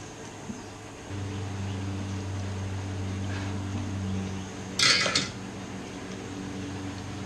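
Lawn mower engine starts running about a second in and carries on as a steady hum. About five seconds in there is a loud metallic clink, two strokes in quick succession.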